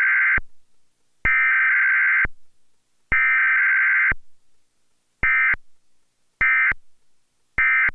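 Emergency Alert System Required Weekly Test sent as SAME data bursts. First come three digital header bursts, each about a second long, then three short end-of-message bursts with a brief gap between each.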